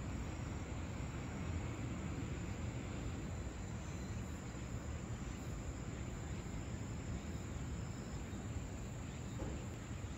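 Insects, crickets or similar, trilling steadily and high over a steady low rumble of outdoor ambience.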